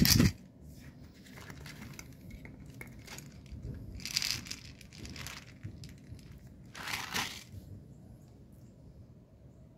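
Dry popcorn kernels rattling and a plastic bottle and bag crinkling as the kernels are handled and poured, in short bursts: one at the start, one about four seconds in and another about seven seconds in, with small clicks of single kernels in between.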